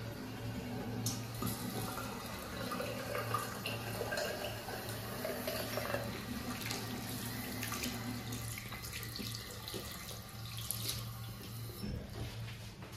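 Tap water running into a ceramic washbasin while soapy hands are rubbed and rinsed under the stream, over a steady low hum.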